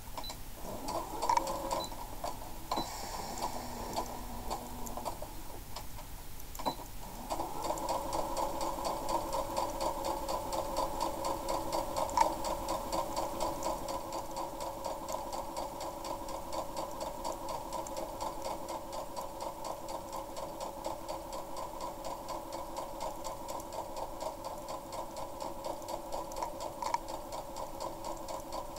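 Small electric home sewing machine stitching fabric, the needle going up and down in a fast, even rhythm. It runs in short spurts at first, then steadily from about seven seconds in.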